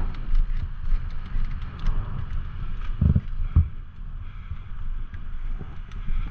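Mountain bike rattling and clattering over a rough, rocky trail: quick irregular clicks and knocks from the bike and tyres, with two heavier thumps about three seconds in, over a steady low rumble of wind buffeting the microphone.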